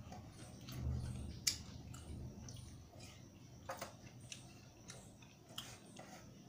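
Someone eating rice and dal by hand from a steel plate: chewing, with scattered sharp clicks and scrapes as fingers work the food against the plate, the sharpest about one and a half seconds in.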